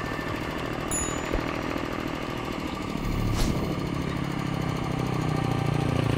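An engine running steadily with a rapid low chugging, growing louder from about halfway through, with a single sharp click a little after that.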